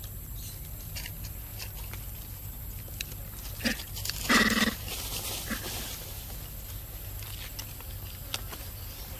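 Two short animal calls, the second louder and a little longer, about half a second apart near the middle, over a steady low hum and scattered light clicks.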